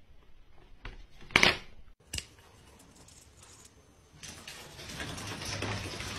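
A short, loud knock about a second and a half in, then from about four seconds a steady rushing of an electric hair dryer blowing, with a faint high whine.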